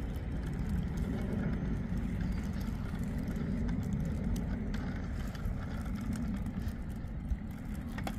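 Bicycles rolling along a concrete path: a steady low rumble with a few faint scattered clicks.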